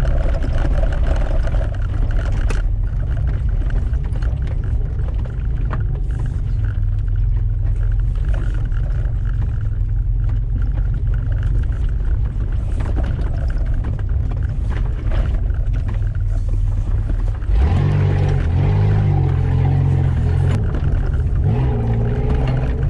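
Off-road 4x4 SUV driving over a rough grassy track: a steady low rumble of engine and wind buffeting on the hood-mounted microphone. From about three-quarters of the way in, the engine note grows louder and more distinctly pitched as it works harder.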